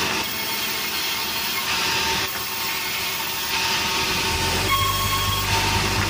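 Sawmill saw running with a steady machine whine and clatter as timber is fed through it; a deeper hum joins about four seconds in.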